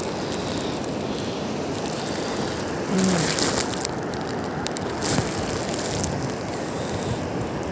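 Steady wash of surf and wind at the shoreline.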